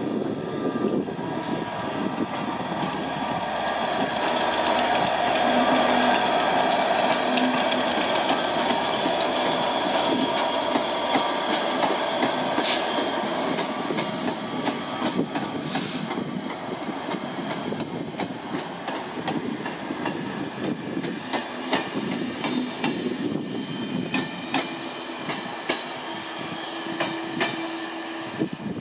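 Locomotive-hauled passenger train passing along the platform. The locomotive's engine grows louder as it draws past, then the coaches roll by with a run of wheel clicks over the rail joints and a brief high wheel squeal about two-thirds of the way through.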